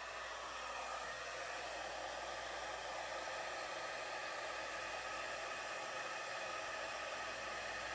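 Handheld hair dryer running steadily, its airflow blowing wet acrylic paint across a canvas to spread it into a bloom.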